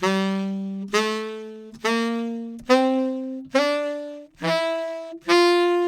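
Tenor saxophone playing an ascending G major scale, about a note a second. Each note is attacked hard and then quickly fades, in forte-piano style.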